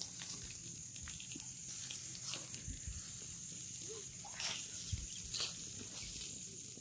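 Charcoal embers under marinated whole chickens on spits, hissing steadily with scattered crackles and pops.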